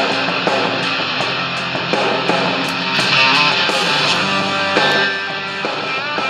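Guitar music playing through the Sony ICF-2010's built-in speaker, received on FM from a low-power transmitter fed by an MP3 player. It plays steadily with hardly any deep bass.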